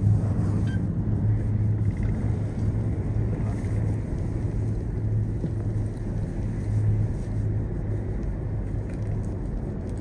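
Steady low rumble of a moving cable car cabin, with no sudden events.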